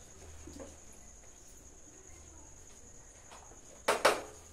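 Two quick sharp knocks about four seconds in: a serving spoon striking a plastic plate as rice is served onto it. A steady high-pitched whine runs underneath.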